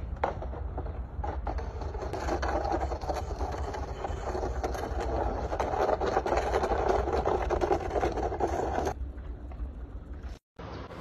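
A ladder scraping and rattling as it is dragged over concrete ground. The rough scraping starts about two seconds in and stops suddenly near the end, over a steady low rumble.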